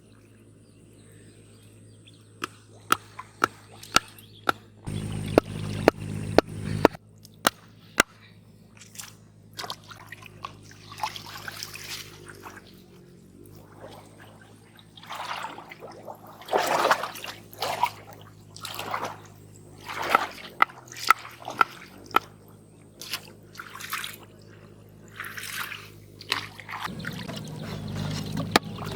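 Water splashing, sloshing and trickling in irregular bursts, as from someone moving and working in shallow canal water. A run of sharp clicks comes in the first several seconds, and a low steady hum is heard twice.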